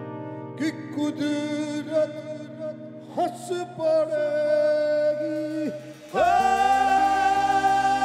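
Live fusion band: a man sings long, sliding notes over held chords and electric bass guitar. About six seconds in the full band comes in louder on a long sustained note over deep bass.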